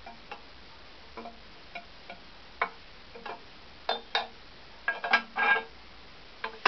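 Chrome shorty exhaust header for a Yamaha TTR250 knocking and clinking against the frame and engine as it is worked into position by hand: irregular light metallic taps, some with a short ring. They get louder and closer together about halfway through, with a cluster of clinks about five seconds in.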